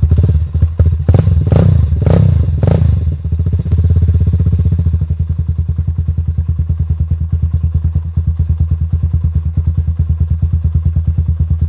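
A 1985 Honda ATC 200X's single-cylinder four-stroke engine, just started cold after sitting unused for three or four years. It is revved in a few sharp bursts over the first three seconds, then settles into a steady, even idle after about five seconds.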